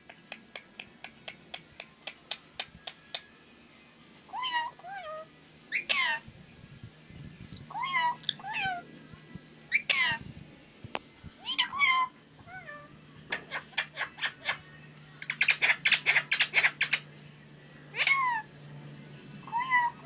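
Rose-ringed (Indian ringneck) parakeets calling: a quick run of short chirps, about four a second, then loud squawks that slide down in pitch, with a rapid burst of calls about three-quarters of the way through.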